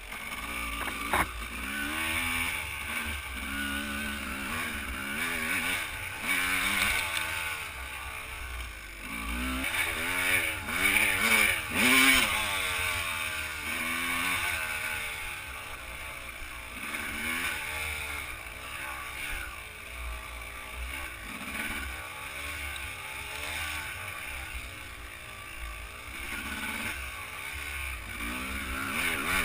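Enduro dirt bike engine under way on a trail, its pitch rising and falling again and again as the throttle is opened and shut, loudest about a third of the way in.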